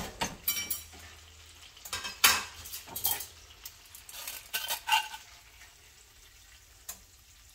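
Metal tongs clanking and scraping against a frying pan as a seared ribeye steak is lifted out, over a faint sizzle of hot butter and oil. A handful of separate clanks, the loudest at the start and about two seconds in, growing sparse near the end.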